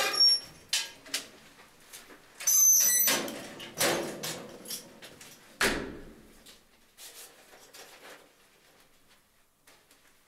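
Metal letterbox door and key rattling and clicking, with a loud metallic clatter about three seconds in as the mail is taken out. The small door bangs shut just before six seconds, followed by faint rustling of paper envelopes being handled.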